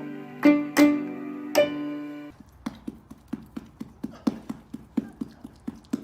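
Music of plucked and keyboard notes that stops abruptly about two seconds in. It is followed by a steady series of soft knocks, about three a second.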